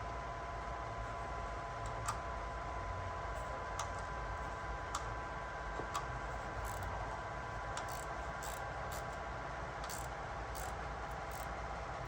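Scattered light clicks and ticks, about a dozen, over a steady background hum with a faint whine.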